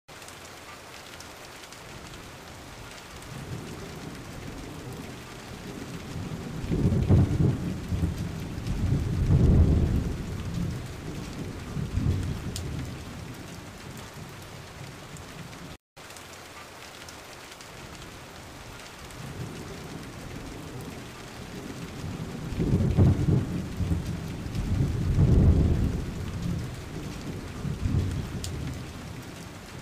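Steady rain with rolling thunder: two deep rumbles swell and fade a few seconds apart. Halfway through, the sound drops out for an instant and the same stretch of rain and thunder repeats, as a looped rain-and-thunder ambience track.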